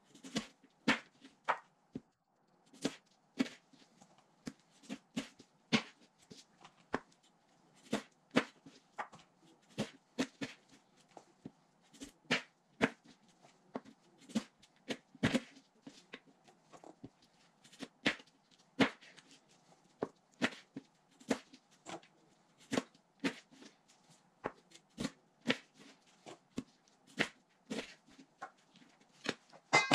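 A chef's knife knocking on a plastic cutting board as raw chicken wings are cut apart at the joints. The sharp taps come irregularly, about one or two a second, over a faint steady hum.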